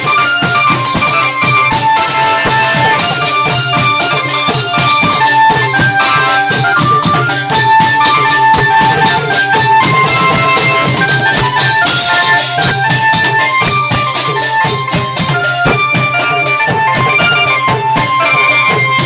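Thai klong yao long-drum band playing: fast, dense drumming and cymbal strikes under a melody of held notes that steps up and down.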